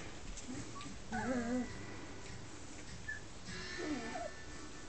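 Bull mastiff cross puppies whimpering, with a wavering whine about a second in, a short squeak around three seconds and another whine near the end.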